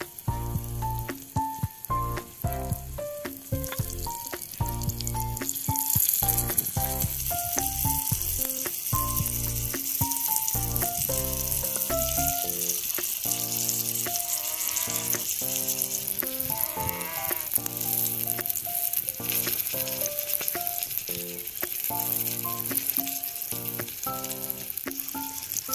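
Oil sizzling as small paneer tikka skewers fry on a miniature iron tawa, the sizzle growing brighter about six seconds in. Background music with a melody plays over it, and its bass drops out about halfway through.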